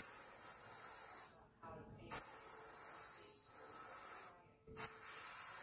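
Airbrush spraying paint in three hissing bursts, with short pauses about a second and a half in and again near the end.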